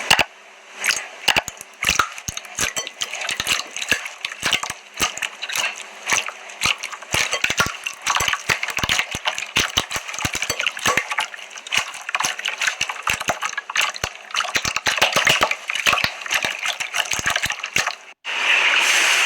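Slime being squeezed and pressed by hand, giving many sharp wet clicks and crackling pops. Near the end it switches abruptly to a steadier rustling hiss.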